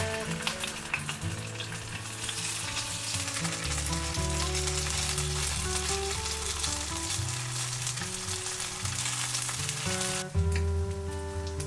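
Boiled potato gnocchi sizzling and crackling as they pan-fry in oil in a non-stick frying pan, turned now and then with chopsticks; the sizzle drops away sharply about ten seconds in. Soft background music plays underneath.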